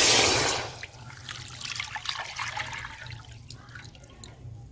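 Milk poured from a metal cup into a metal karahi. It starts as a loud splashing gush, which dies away within about a second into a thin trickle and drips as the cup empties.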